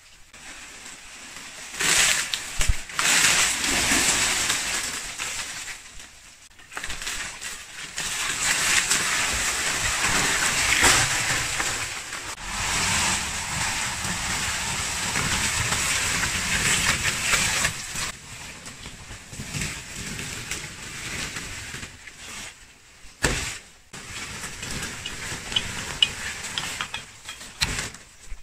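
Palm fronds and brush rustling and crunching as cut fronds are pulled and dragged through the undergrowth, in several separate stretches.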